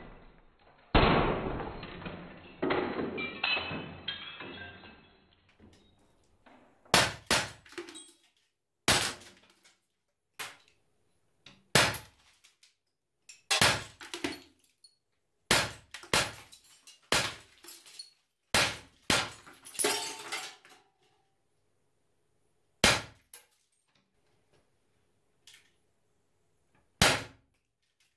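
Glass bottle shattering with a loud crash about a second in, pieces crackling and tinkling for a few seconds. Then about fifteen sharp cracks of a 4.5 mm CO2 air pistol (Umarex Beretta 84 FS) firing pellets, spaced half a second to a few seconds apart.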